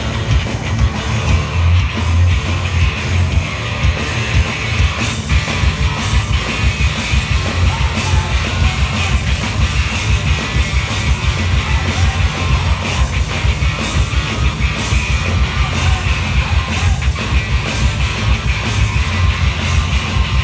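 Live rock trio playing loud: electric guitar, bass guitar and drums, with a steady, rapid drum beat and heavy low end, recorded from within the audience.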